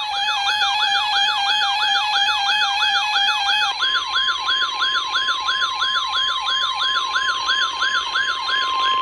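NOAA Weather Radio alert alarm between warnings: a siren-like falling sweep repeating about three times a second over a steady alarm tone. The steady tone steps up in pitch about four seconds in, to just above 1 kHz, the band of the Weather Radio warning alarm tone.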